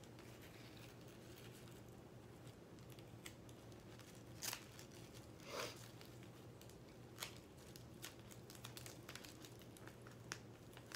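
Faint rustling and scattered small clicks of hands handling and bending a sparkly pipe cleaner, with a few sharper ticks around the middle.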